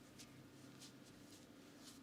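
Faint hands rubbing through hair on the scalp during a head massage, soft swishes about two to three times a second, over a steady low hum.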